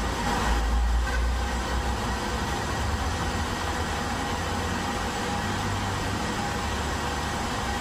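Metal lathe running at steady speed, its motor and headstock gearing giving a steady low hum with a faint constant whine over an even hiss.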